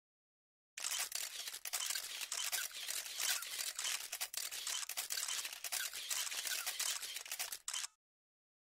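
A loud burst of crackling, hissing noise thick with rapid clicks, starting about a second in and cutting off abruptly near the end.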